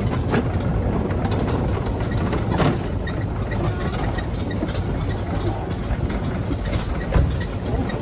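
Ride in an open golf cart: a steady low rumble of the cart rolling over brick paving, with an occasional knock or rattle.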